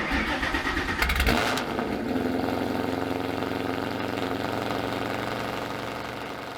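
Car engine starting: it cranks, catches about a second in with a brief rev, then settles to a steady idle that fades out near the end.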